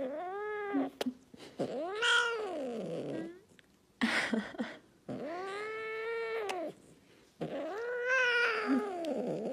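Tabby Scottish Fold cat meowing five times in a row, long drawn-out cries that each rise and then fall in pitch, with short pauses between them.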